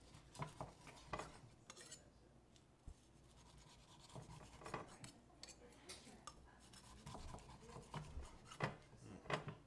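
Knife slicing through grilled turkey breast on a wooden cutting board: faint scraping strokes with scattered sharp clicks of the knife and carving fork against the board, the loudest about a second in, near five seconds and near the end.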